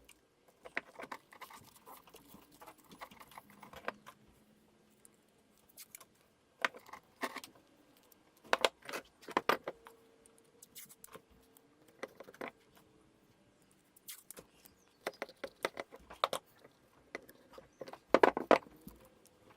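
Metal parts of an antique meat grinder clinking and clicking as they are handled, in irregular taps with the loudest clusters about nine seconds in and near the end.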